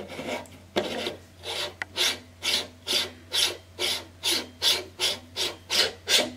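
An astro camera being screwed by hand onto the threaded front end of a Celestron RASA 8 astrograph, twisted again and again. Each twist gives a short rasping scrape, about thirteen in a row at two or three a second.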